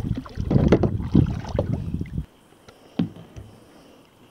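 Rumbling handling noise on a phone microphone, mixed with sharp clicks and knocks, cutting off suddenly about two seconds in; one lone knock follows about a second later.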